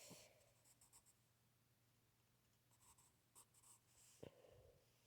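Faint, brief scratching strokes of drawing by hand, a few short strokes with pauses between them, barely above near silence.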